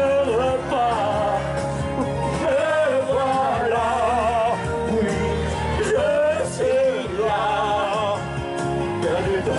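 A man singing karaoke into a handheld microphone over a loud backing track, amplified through a sound system. He holds several long notes that waver up and down.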